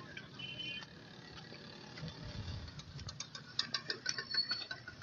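Faint irregular crunching and clicking of loose gravel and broken road surface, thickening from about the middle onward, over a low rumble.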